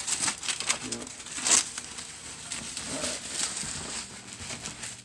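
Plastic packaging wrap crinkling and rustling as it is handled and bunched up, in irregular crackles, the loudest about one and a half seconds in.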